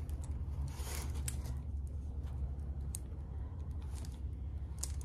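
Plastic cover film on a diamond-painting canvas crinkling and rustling as it is handled and flexed, with a few light clicks, over a steady low hum.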